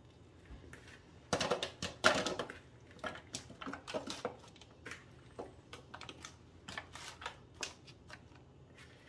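A spoon scraping and knocking in a mixing bowl as oat-coated apple slices are scooped out and dropped into a disposable aluminium foil baking tin: a string of irregular clicks, taps and rustles, the loudest about one and a half and two seconds in.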